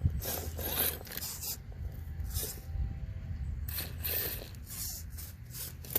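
RC rock crawler working up a steep obstacle: its electric motor hums low and steady under load while the tyres and chassis scrape and click against the surface in irregular bursts, with a sharp knock just after the start and another near the end.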